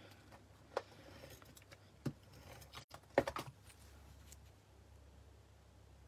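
Light taps and clicks of card being handled and pressed down on a craft mat, a few separate ones with a small cluster about three seconds in, over a low steady hum.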